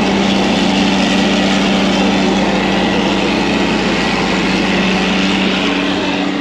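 John Deere self-propelled forage harvester running close alongside, chopping corn and blowing it from its spout into the truck: a loud, steady machine drone with a constant hum.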